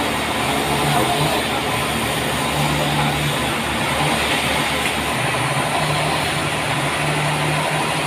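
Sawmill's stationary engine running steadily, with a deeper tone that swells and fades every second or so.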